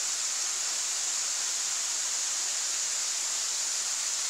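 Waterfall pouring down a rock face, a steady, unbroken sound of falling water.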